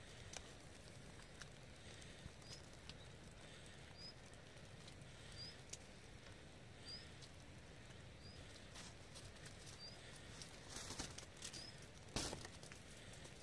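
Quiet outdoor ambience while walking on a wet, snow-dusted path: soft, irregular footsteps and a faint, short, high chirp that repeats every second or two. A louder scuff comes near the end.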